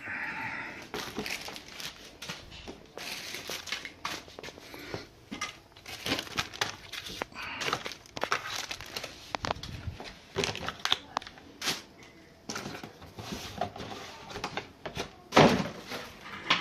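Irregular rustling and crinkling of hands handling the keyboard's cables while plugging its USB connectors in, with scattered small clicks and a louder knock near the end.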